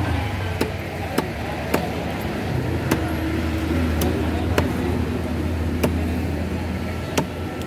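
Large knife chopping through a fish into a wooden log block, about eight sharp chops roughly a second apart, over a steady low hum.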